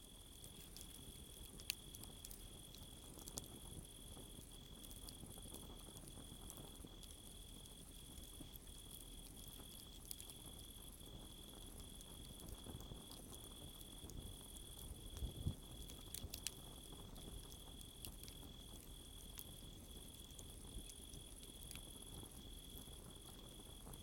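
Crickets chirping in a steady, pulsing high trill over a wood campfire that burns with a soft low rush and scattered sharp crackles and pops, the loudest pair about fifteen and sixteen seconds in.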